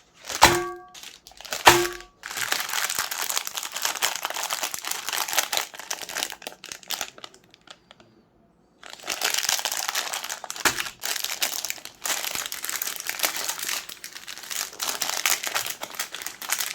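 Dense crackling and crunching as chocolate-coated Magnum ice cream bars are ground through a meat grinder, preceded by two sharp knocks with a brief ringing tone, and broken by a short silent gap about halfway through.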